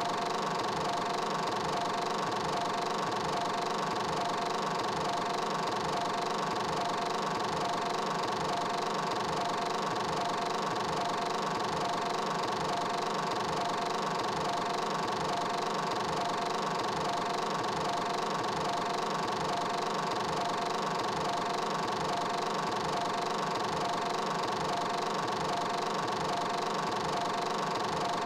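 A steady machine-like drone: an even hiss with two held tones and a slow, even low pulse, unchanging throughout.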